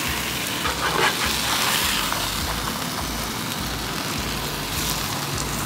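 Cod fillets sizzling in oil on a hot flat-top griddle as they are flipped with a metal spatula: a steady frying hiss over a low, uneven rumble.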